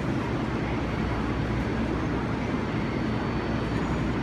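Steady low rumble and hum of a Kawasaki R188 subway train alongside an elevated station platform.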